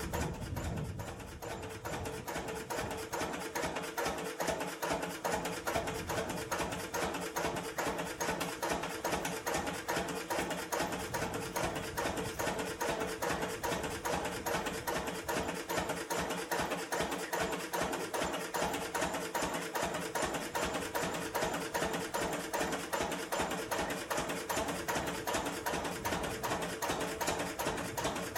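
Single-cylinder Lister CS 3.5 HP diesel stationary engine running steadily, its exhaust beating in a fast, even rhythm.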